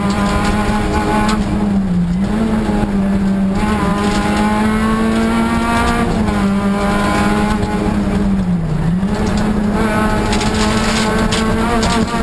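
Rally car engine running hard at high revs, heard from inside the cabin, its pitch held high and steady with two brief dips, about two seconds in and near nine seconds in, before climbing back.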